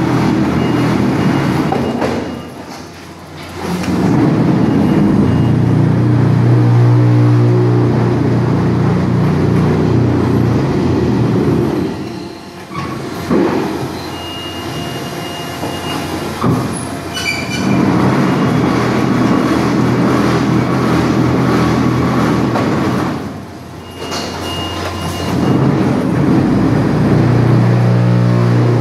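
Concrete block production line machinery running in cycles: a loud, steady machine hum that drops away briefly three times and comes back, with short high-pitched squeals and a few sharp metallic clicks in between.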